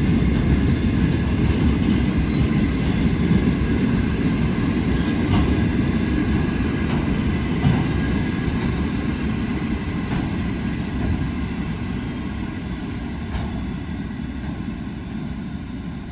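Grain train hopper wagons rolling past on steel rails: a heavy steady rumble of wheels on track. A thin high wheel squeal comes twice in the first five seconds, and a few sharp clicks follow. The rumble grows gradually quieter over the second half.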